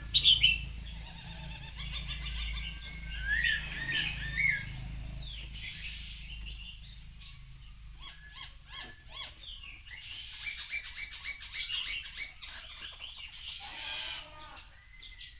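Caged songbirds singing a long, varied song: clear whistled glides and warbles mixed with rapid runs of short chattering notes, with loud phrases about a second in, around three to four seconds in, and again from about ten to fourteen seconds in.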